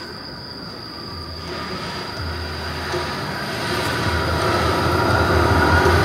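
Storm sound effect: a low rumble and a hiss of rain that come in about a second in and swell steadily louder.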